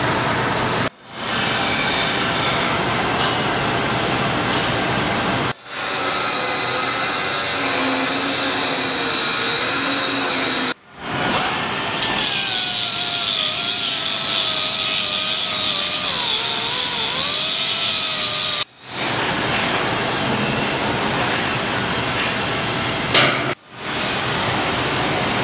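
Shipyard workshop noise in several short shots, each ending in a sudden cut. In the longest, an angle grinder grinds steel on the hull's deck, with a hiss and a whine that drops and wavers in pitch as it is pressed into the metal.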